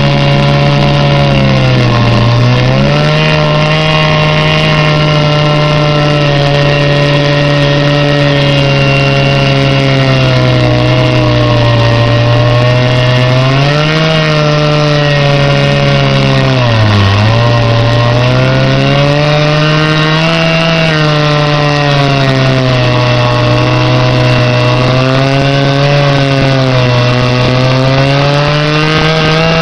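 Chainsaw on a chainsaw mill running at full throttle, ripping boards lengthwise from a log. The engine pitch holds steady and sags briefly about four times as the chain loads up in the cut.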